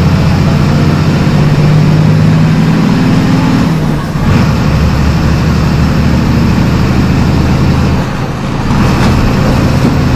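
MWM 6.12 TCAE six-cylinder turbodiesel of a Volkswagen Volksbus 17.210 EOD pulling under load, its pitch climbing for about four seconds. The pitch then drops abruptly at a gear change on the Eaton five-speed manual gearbox, and the engine pulls steadily again, with a brief dip in sound a couple of seconds before the end.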